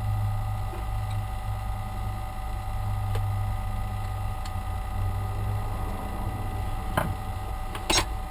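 Small PC cooling fan running with a steady hum and whine, a noise that the owner takes for a bad fan. Two sharp knocks come near the end.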